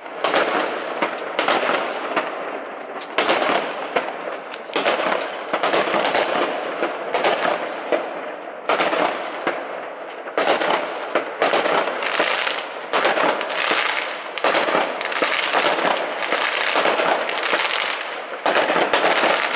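Aerial fireworks going off in a rapid, nearly continuous series of bangs and crackling.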